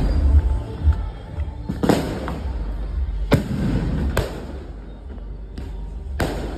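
Aerial fireworks bursting overhead: five or so sharp bangs at uneven intervals of about a second, over loud bass-heavy music.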